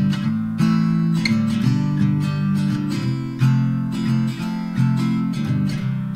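Background music: a strummed acoustic guitar playing a steady chord progression.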